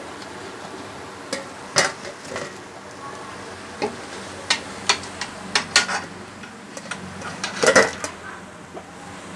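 A slotted steel ladle clinks and scrapes irregularly against a steel kadhai and a steel plate as fried batata vadas are lifted out of the oil, over a low sizzle of the frying oil. The sharpest clinks come about two seconds in and near the end.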